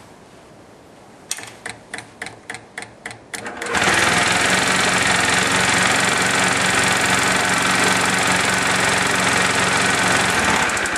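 Honda Zoomer scooter's small four-stroke single-cylinder engine being cranked, with about nine quick pulses at roughly four a second. It catches about four seconds in and runs steadily with a fast rattling clatter, the abnormal engine noise in question, then shuts off just before the end.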